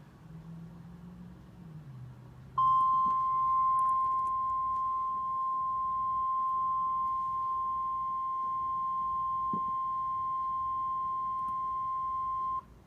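NOAA Weather Radio 1050 Hz warning alarm tone: one steady, loud, high tone that starts about two and a half seconds in, after faint radio hiss, holds for about ten seconds and cuts off sharply. The tone signals that a warning broadcast, here a severe thunderstorm warning, is about to be read.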